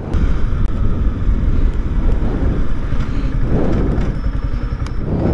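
Yamaha R15 V4's 155 cc single-cylinder engine running as the motorcycle rides slowly over a rough dirt street, heard from a rider-mounted camera with a deep, steady rumble.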